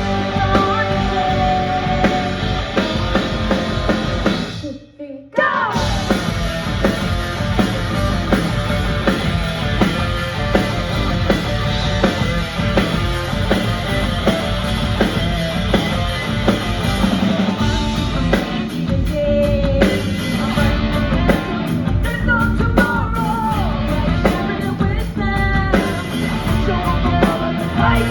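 Rock band playing live: drum kit, electric guitar and bass, with a singing voice. The music cuts out briefly about five seconds in, then starts again.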